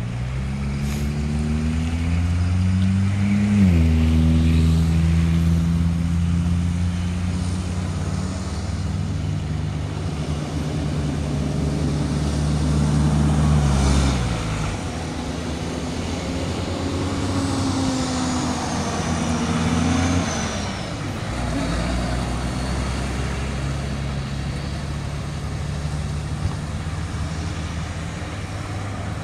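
Tow trucks driving past one after another, their engines pulling away through the gears: engine pitch climbs, then drops at a gear change about four seconds in. Later trucks take over, and a faint high whistle falls in pitch about two-thirds of the way through.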